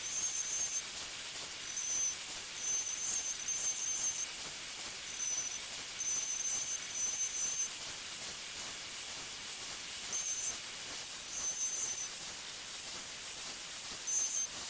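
CNC router spindle running at high speed as a 1/4 inch two-flute end mill cuts Baltic birch plywood on a roughing pocketing pass, with a steady hiss. A high whine comes and goes in short stretches as the bit cuts.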